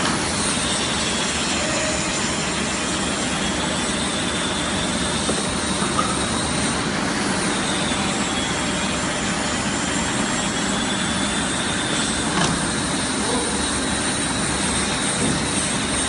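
Industrial automatic carpet washing machine running with a steady, noisy whir, over which a faint high whine dips and climbs back roughly every seven seconds.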